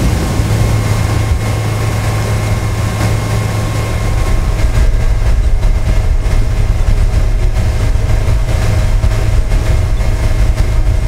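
Speedboat's outboard motor running steadily under way, a low drone mixed with the rush of water from the wake.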